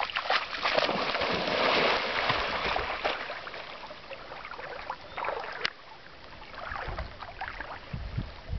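A dog splashing through shallow river water and then swimming, with paddling splashes that grow fainter after the first couple of seconds.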